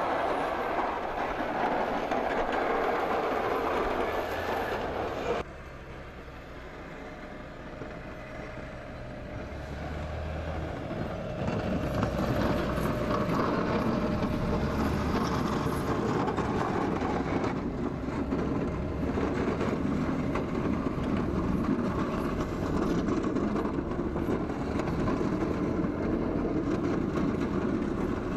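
Tractor engine running under load as its front snowplow pushes through deep snow, with a steady rush of snow thrown off the blade. The sound drops off suddenly about five seconds in and builds back up to full loudness by about twelve seconds in.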